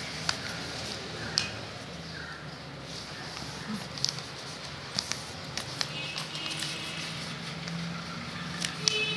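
A sheet of A4 paper being handled and folded by hand: scattered sharp taps and crinkles as the folds are creased, over a steady background hiss and low hum.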